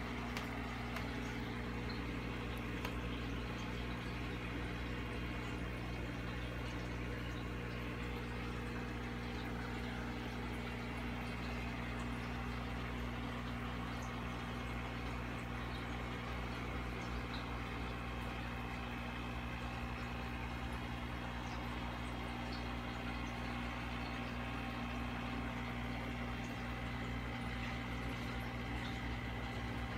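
Aquarium equipment running steadily: a low electrical hum with a constant wash of bubbling water noise, typical of an air-driven sponge filter.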